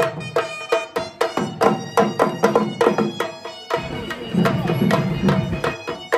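Dhol drum beaten with sticks in a brisk, steady rhythm, with a held, piping melody sounding over the beat. A low rumble thickens the sound for about two seconds near the middle.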